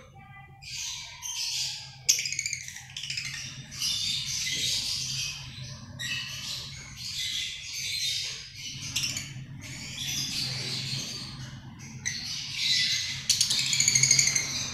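A cage full of pale yellow lovebirds chattering and squawking together in shrill, overlapping bursts, with only brief pauses. A steady low hum runs underneath.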